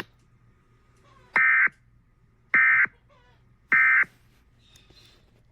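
Emergency Alert System end-of-message (EOM) data tones: three short, identical bursts of harsh digital screech about a second apart, signalling the end of the alert.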